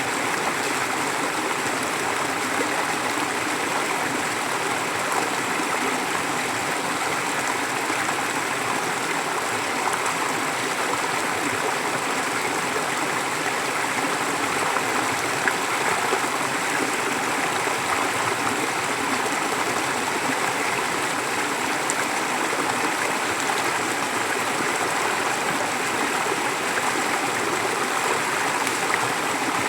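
Forest stream flowing, a steady even rush of running water.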